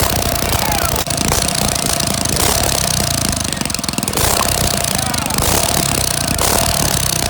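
Small go-kart engine running loudly and steadily with a rapid pulsing beat, at its first start-up after being installed.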